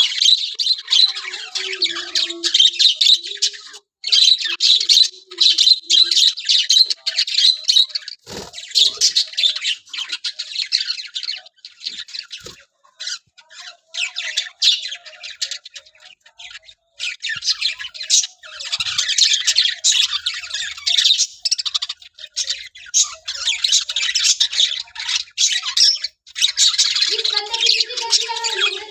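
A flock of caged small parrots chattering and squawking constantly, a dense mass of rapid high-pitched calls that thins out for a few seconds around the middle, with a lower call near the end.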